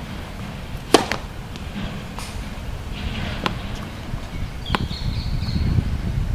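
A tennis serve: the racket strings strike the ball with one sharp crack about a second in, followed later by two fainter knocks. Wind rumbles on the microphone underneath.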